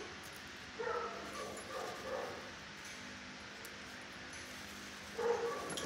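A dog giving short pitched barks in two bouts, a run of several about a second in and another near the end.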